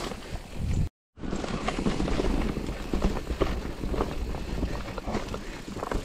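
Electric mountain bike rolling over a rocky, leaf-covered trail: tyre rumble with frequent knocks and rattles from the bike as it crosses the stones. The sound cuts out completely for a moment about a second in.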